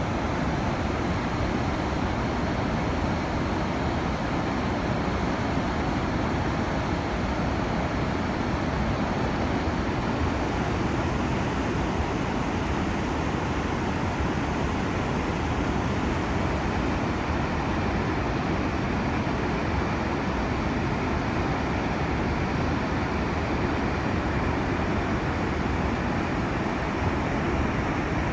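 Shiroyama Dam releasing floodwater after a typhoon: a steady, dense rush of heavily discharging water, unchanging throughout.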